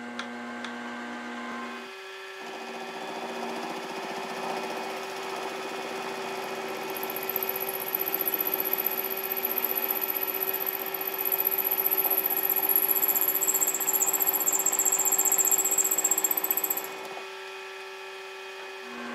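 Milling machine spindle running steadily while an end mill cuts into a thick-walled aluminium tube. The cutting noise comes in about two seconds in and grows louder, with a high thin whine over it for much of the cut. Near the end the cutting stops and the spindle runs on alone.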